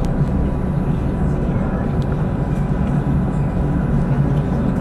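Modern tram rolling at about 15 km/h, heard from inside the front of the car: a steady low rumble with a faint steady tone above it and a few light clicks.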